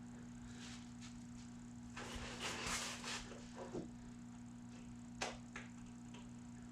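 Hand work on a serpentine belt and its pulleys: a scraping rasp about two seconds in, a few small clicks, and one sharp click a little after the five-second mark, over a steady low hum.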